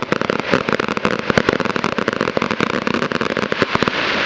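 Fireworks crackling: a dense, rapid string of sharp pops, many a second, that stops a little before four seconds in and leaves a steady hiss.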